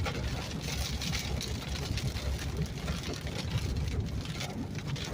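Heavy rain falling in a steady hiss, over a low, steady vehicle rumble.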